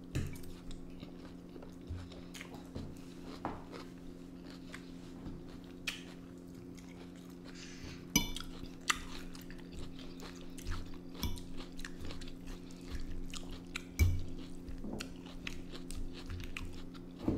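Close-up chewing and crunching of a mouthful of mixed food, with a couple of sharp clicks along the way and a steady low hum underneath.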